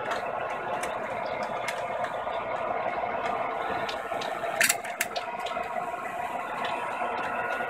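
O gauge model freight train rolling past on its track: a steady whir of wheels and running gear with scattered clicks, and a louder double clack about four and a half seconds in.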